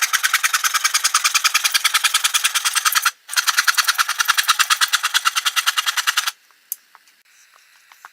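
Saw cutting through a wooden board in fast, even strokes, about a dozen a second. The strokes break off briefly about three seconds in, then stop a little after six seconds, followed by a single light click.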